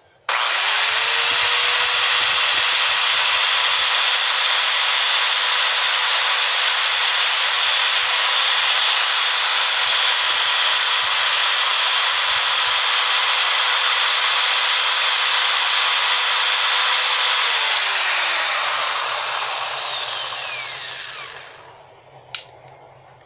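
Electric drill running steadily at speed with a diamond-coated bit grinding into a glass bottle. About three-quarters of the way through it is released, and the motor's pitch falls as it winds down and stops.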